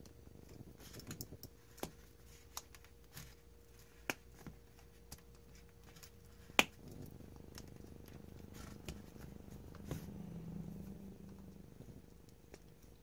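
Small hand cutters clicking and snapping as they cut into the hard plastic housing of an Xbox 360 power supply's DC connector plug, with one sharp snap about six and a half seconds in and light handling rustle after it.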